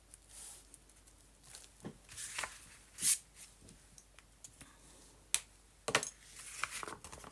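A fine-liner pen scratching lightly on paper, then scattered sharp clicks and taps as the pen is capped and set down on the desk; the loudest click comes about three seconds in.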